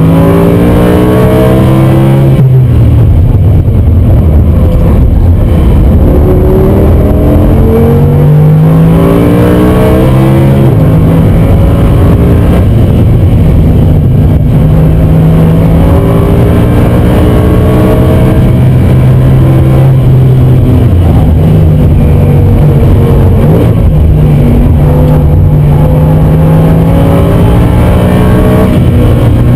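Audi R8 V10 Plus's 5.2-litre FSI V10 at full throttle, heard from inside the cabin. Its pitch climbs steeply and drops back at each quick S-tronic upshift over the first ten seconds or so, then holds a high steady note, dipping about twenty seconds in before it climbs again.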